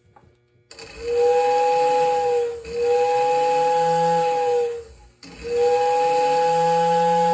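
Model steam-locomotive whistle from an O-gauge Big Boy's sound system. It blows three long blasts, the third held past the end, each a steady two-note chord with an airy hiss.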